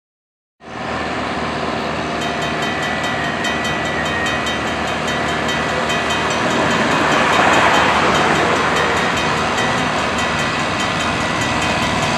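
Railroad crossing warning bell ringing in a fast, even repeating ding as the crossing activates and its gate arms lower. A car passes over the crossing about two-thirds of the way through, adding a brief swell of road noise.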